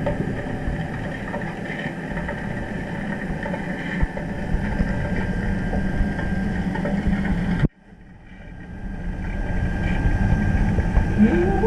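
Steady low mechanical hum and rumble heard underwater in a deep diving pool. It cuts off abruptly about eight seconds in and fades back up over the next few seconds, and a rising, wavering tone begins near the end.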